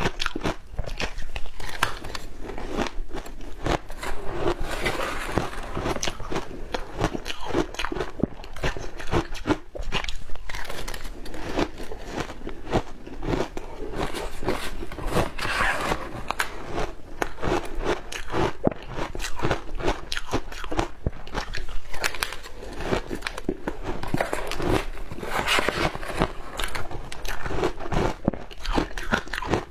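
Shaved ice being bitten and chewed close to the microphone: a continuous run of rapid, irregular crunches.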